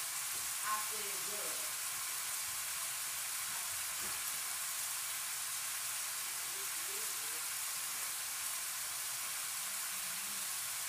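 Chicken pieces and shrimp frying in a pan on a gas burner: a steady, even sizzle.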